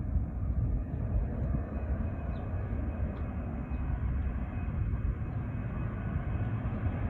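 Jet airliner engines rumbling as a plane takes off, growing louder near the end.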